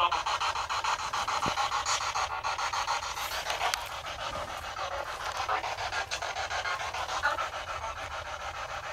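Ghost-hunting spirit box (radio sweep device) scanning through stations: a fast, even chopping of radio static.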